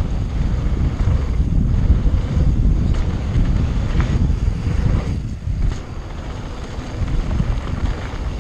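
Wind buffeting the microphone of a helmet camera on a mountain bike riding fast down a dirt trail: a loud, gusty low rush. It dips briefly a little past the middle, and there is a short tick about four seconds in.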